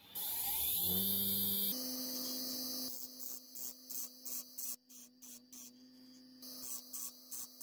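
Small bench grinder switched on, its motor spinning up with a rising whine and then running with a steady hum. From about three seconds in, a steel twist drill bit is pressed against the wheel in short strokes, giving brief grinding bursts about two to three a second as its tip is sharpened.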